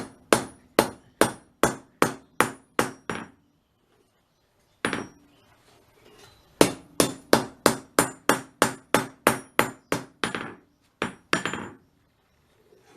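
Hand hammer striking hot steel on an anvil in steady blows about two or three a second, each with a short high ring: a run of about eight blows, a pause with a single blow, then a longer run of about a dozen and two more near the end. This is forge-weld hammering on a scrap-steel billet that the smith doesn't think is sticking.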